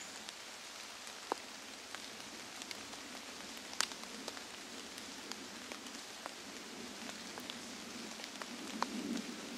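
Rain falling on leaves and leaf litter in woodland: an even patter with scattered sharp ticks of single drops landing.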